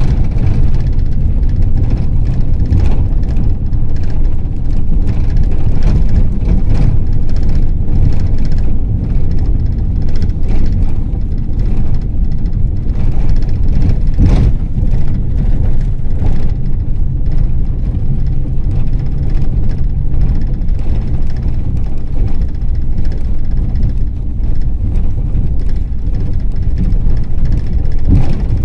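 Ford Transit minibus on the move: steady low engine and road rumble, with frequent short knocks and rattles, a sharper one about halfway through.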